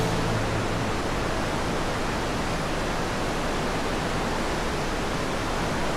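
Steady rushing hiss of a cruise ship's churning wake behind the stern.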